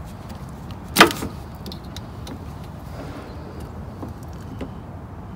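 Screwdriver working at plastic fasteners in a pickup's engine bay: one sharp snap about a second in, then a few light clicks of plastic parts being handled, over a steady low rumble.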